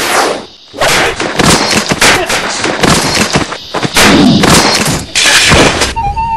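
A rapid series of loud, sharp hits and thumps: fight-scene punch and strike sound effects, with a brief lull about half a second in.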